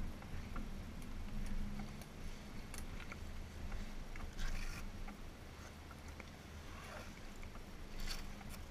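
A motorcycle engine idling with a low, steady hum, under scattered small clicks and brief rustles of riding gear about halfway through and near the end.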